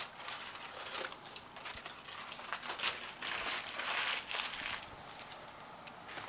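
Aluminum foil crinkling and crackling in irregular bursts as it is peeled off a disposable aluminum pan, dying away about five seconds in.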